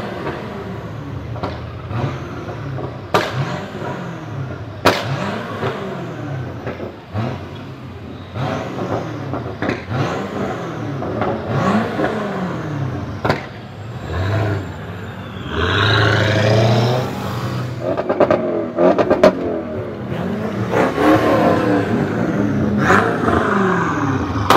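Twin-turbo V8 of a widebody BMW 650i Gran Coupé revved again and again at low speed, each rev rising and falling in pitch, with sharp cracks from the exhaust between revs. The longest, loudest revs come about two-thirds of the way through and again near the end.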